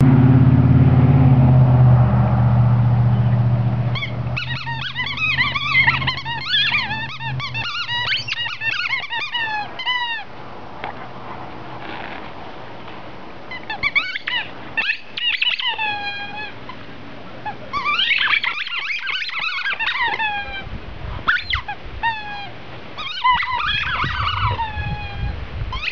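Dog chewing a squeaky ball toy, setting off rapid high squeaks that fall in pitch, in several bursts of a few seconds each. A low steady rumble fills the first few seconds and is the loudest sound.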